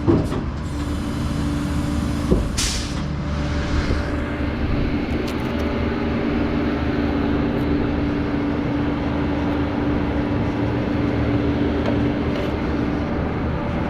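Flatbed tow truck's engine and hydraulic system running steadily with a constant hum while the disabled truck is loaded onto the bed. There is a single knock about two seconds in, followed by a short hiss.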